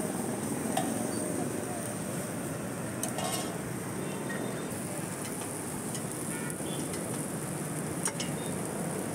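Steady street noise, with kulchas sizzling on a flat iron tawa and a few sharp clinks of a metal spatula against the griddle, one around three seconds in.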